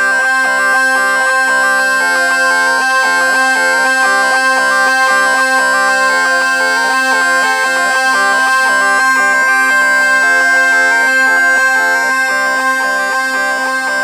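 Zampogna, the southern Italian bagpipe, played solo: a quick melody of rapidly changing notes on its two wooden chanters over steady, unbroken drones, loud and continuous.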